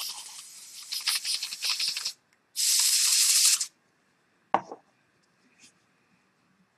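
An aerosol spray can shaken hard, its mixing ball rattling rapidly for about two seconds, then one spray of about a second, followed by a single click.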